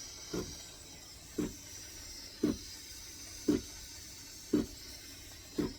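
Sumsaty espresso machine's steam wand hissing steadily as it heats milk, with a low short pulse repeating about once a second.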